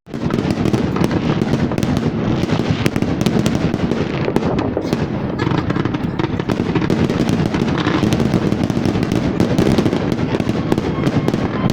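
Fireworks finale: a rapid, unbroken barrage of shells bursting and crackling, one bang over the next with a continuous low rumble beneath.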